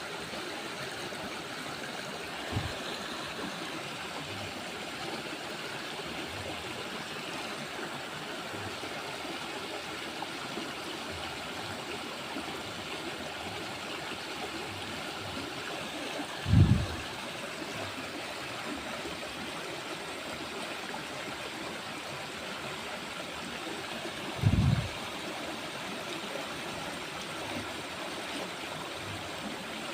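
Steady rush of flowing water, like a stream or small weir running. Two dull low thumps break it, a little past halfway and again about three-quarters through.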